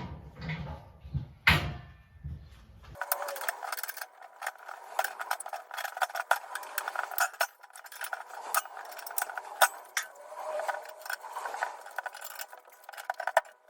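Q-Max hole punch being drawn through the wall of a brewing boil kettle by turning its drive bolt with a hex key: a dense run of metallic clicks, creaks and scraping as the punch cuts. About three seconds in the sound turns thinner.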